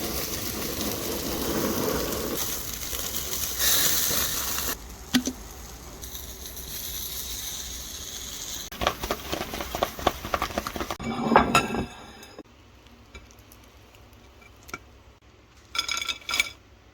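Food sizzling in a pan, with utensils scraping and clattering against the cookware; a run of quick knocks and clinks comes past the middle, and a couple of short clinks near the end.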